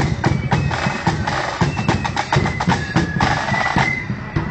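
Marching flute band playing as it parades: flutes carry a high tune over a steady beat of side drums and bass drum.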